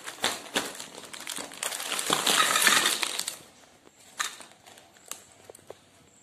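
A bagful of plastic and metal hair clips, hair bands and bobbles tipped out onto a wooden table, clattering and chinking for about three seconds and loudest near the end of the pour. A few single clicks follow as pieces settle or are moved.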